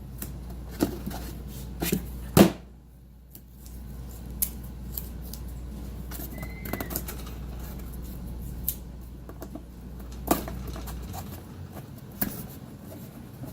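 Scattered light clicks and knocks from wooden module pieces and painter's tape being handled during glue-up, with one louder knock about two and a half seconds in.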